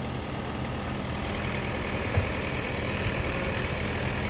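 Skid steer engine running steadily, with one short knock about two seconds in.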